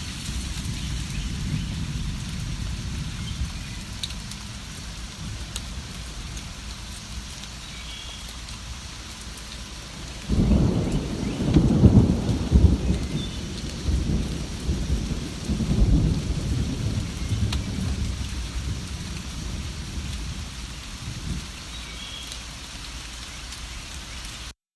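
Steady rain with a low rumble of thunder that breaks in about ten seconds in and rolls on for several seconds, loudest in the first few. A few faint bird chirps come through the rain, and the sound cuts off suddenly near the end.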